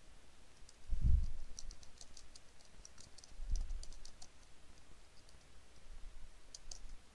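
Computer keyboard typing: scattered, light key clicks. Two dull low thumps come about a second in and about three and a half seconds in.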